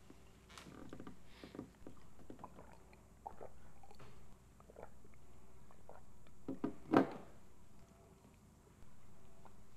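Quiet handling sounds, small knocks and rustles as a man drinks from a glass of water, with one sharper, louder sound about seven seconds in.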